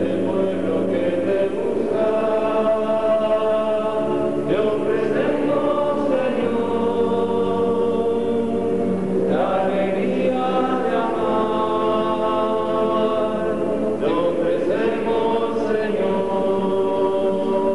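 Choir singing a slow hymn in long held notes, the phrases breaking and starting again every three to five seconds.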